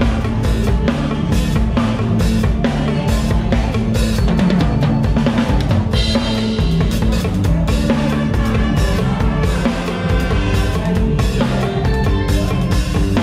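Live band music with a close-miked drum kit to the fore, kick, snare and cymbals played in a steady driving beat over electric bass and keyboard.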